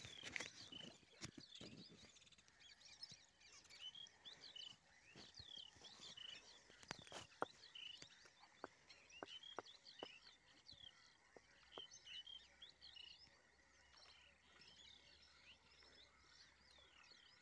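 Faint outdoor ambience of birds chirping: many short, repeated calls, with a few scattered faint clicks, most of them between about seven and ten seconds in.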